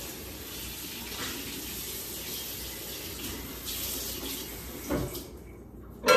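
Kitchen faucet running steadily into a sink, cutting off about five seconds in.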